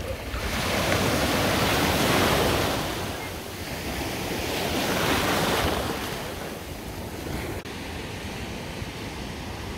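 Small sea waves breaking and washing in the shallows, swelling twice about three seconds apart, with wind rumbling on the microphone.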